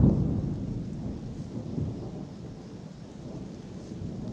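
Thunder rumbling low and dying away over a few seconds after a loud clap, with a brief swell partway through.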